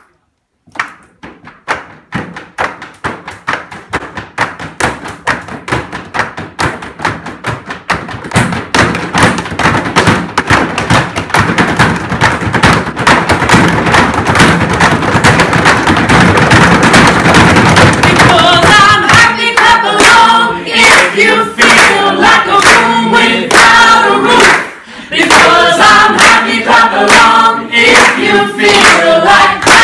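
A group drumming on classroom desks with their hands: a rhythm of slaps and thumps that starts sparse and builds steadily denser and louder. About two-thirds of the way in, the group starts singing together over the desk drumming and clapping, with a short break a few seconds later.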